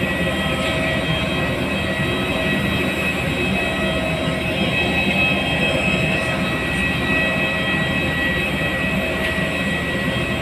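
Steady turbine whine of a parked jet airliner, several high steady tones over a constant low rumble.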